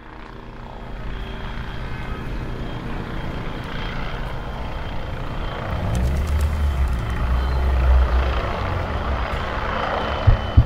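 Helicopter flying overhead: a steady rumbling drone that fades in and is deepest from about six to eight and a half seconds in, with a single deep thump at the very end.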